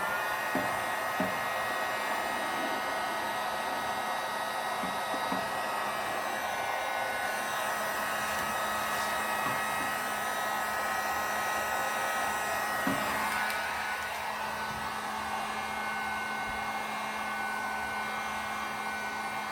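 Electric heat gun running steadily to shrink heat-shrink tubing onto a hose: a constant rush of blown air with a steady whine over it. It gets a little quieter about two-thirds of the way through.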